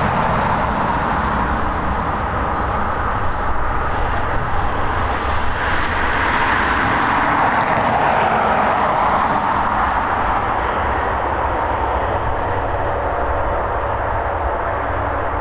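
Airbus A330 airliner's jet engines running at low taxi power as it taxis past: a steady jet whine and rumble that swells a little about six seconds in and eases off slightly near the end.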